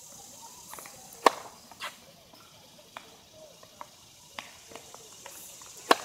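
A tennis ball tapped against the hard court several times in a loose, uneven rhythm, then a single loud crack of the racket strings hitting the ball on a serve near the end.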